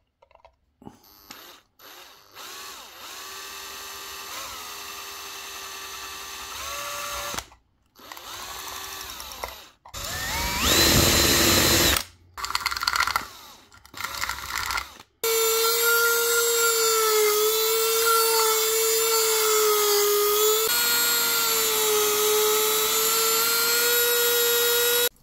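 A power drill with twist bits boring holes through a small 3D-printed plastic part in several short runs, its motor whining. From about 15 seconds in, a rotary tool with a small sanding drum runs steadily with a high whine that wavers slightly in pitch as it sands the part.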